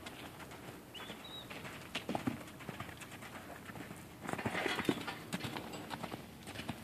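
Hoofbeats of a horse running loose on the sand floor of a round pen, an uneven series of dull thuds. They are loudest at about four and a half seconds, when the horse passes right beside the fence.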